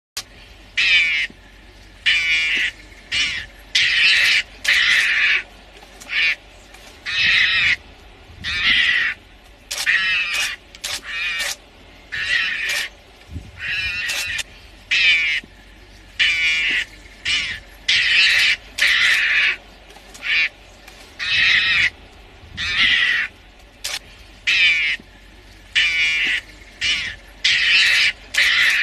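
A mongoose giving harsh, high, quavering chattering calls in short bursts, roughly one every second. These are defensive calls at lions closing in on it.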